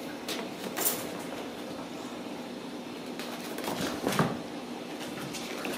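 Kittens pawing and climbing on a wire exercise pen, the metal wires giving a few short rattles (once about a second in, then again near four seconds), over a steady low hum.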